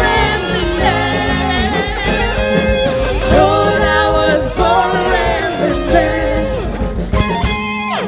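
Live rock band playing: electric guitars and a drum kit with sung vocals.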